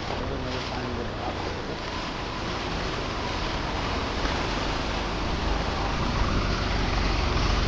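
Steady rush of floodwater with wind rumbling on the microphone, growing louder toward the end.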